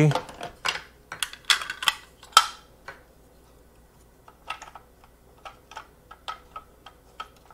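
Clicks and clacks of a Zyliss rotary cheese grater being handled: a dense run of sharp clicks in the first few seconds with one louder clack about two and a half seconds in, then scattered single clicks.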